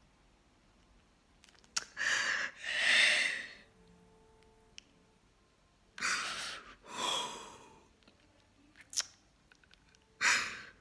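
A woman breathing heavily: two long, noisy breaths about four seconds apart, each in two parts, as if drawn in and let out, with a few sharp mouth clicks between them and another breath near the end.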